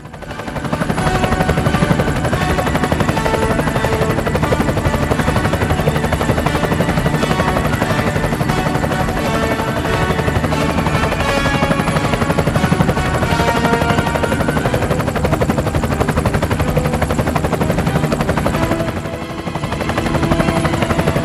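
Helicopter running, its rotor beating rapidly and steadily, as it lifts off from a glacier snowfield and flies over it; the sound swells up in the first second.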